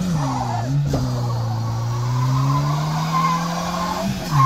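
Car engine held at high revs during a burnout, with tyres squealing. The revs dip about a second in, hold steady, then fall near the end.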